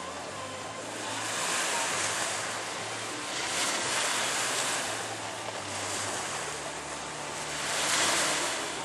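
Waves washing in, swelling every couple of seconds, with a faint steady low hum underneath.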